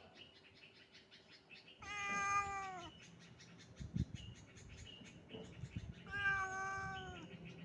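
A cat meowing twice, each meow about a second long and falling slightly in pitch at its end, over faint rapid ticking in the background.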